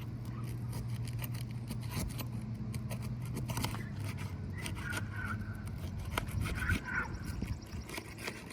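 Roofing shingles being pried up with a metal tool worked underneath them: irregular scraping and clicking, over a steady low hum.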